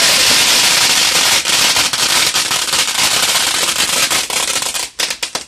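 Ground fountain firework spraying sparks: a loud, steady hissing spray full of crackles, with a few sharper cracks about five seconds in before it cuts out abruptly near the end.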